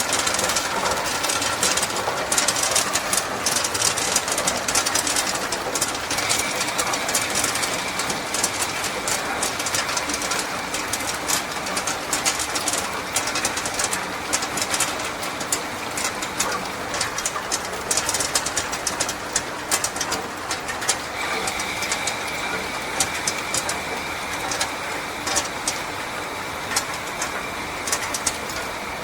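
Tube ice machine running while it releases ice: a dense, continuous clatter of ice tubes falling out over a steady machine hum. A thin high tone comes in about six seconds in, drops out around eighteen seconds, and returns shortly after.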